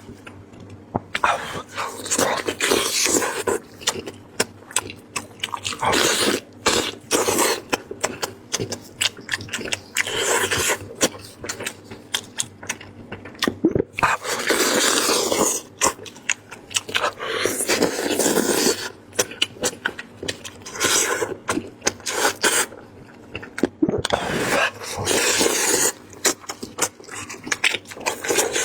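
Close-miked eating of braised lamb head: meat being pulled apart and chewed, heard as a dense stream of wet clicks and crackles in uneven bursts.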